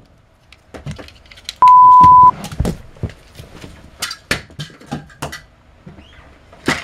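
A loud, steady single-pitch beep lasting under a second, starting about one and a half seconds in, of the kind used as a censor bleep. Around it are scattered short knocks and taps, with footsteps on carpet.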